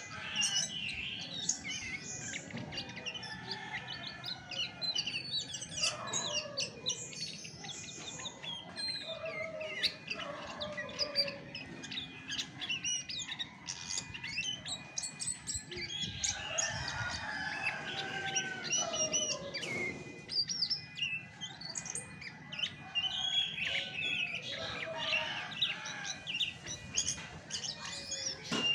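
Chestnut-backed thrush singing a continuous, varied song of rapid high chirps and lower warbled phrases.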